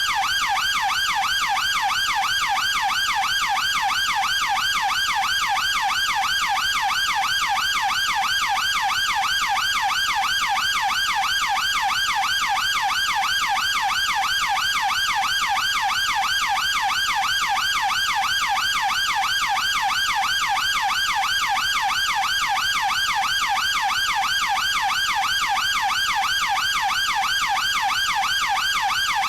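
Chinese police car siren in a fast yelp: one steady-level tone sweeping rapidly up and down, over and over without a break.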